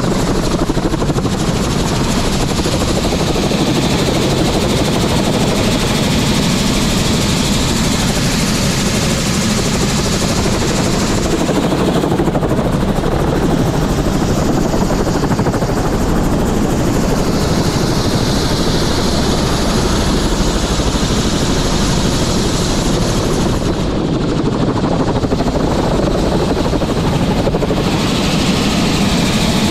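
Helicopter running steadily: a loud, even rushing noise that does not rise or fall.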